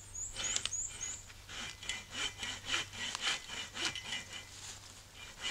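Light hand saw cutting through a dead dogwood trunk in steady back-and-forth rasping strokes, about two a second.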